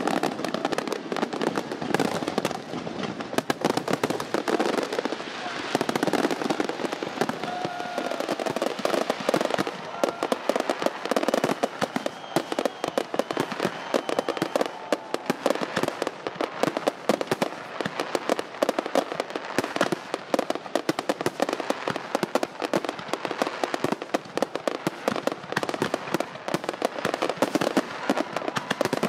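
Fireworks going off in a dense, continuous barrage of crackles and pops.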